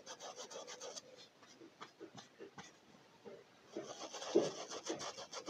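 A paintbrush with little paint on it scrubbed in small circles against a cloth diaper, a faint rapid scratchy rubbing for the first second and again, a little louder, over the last two seconds.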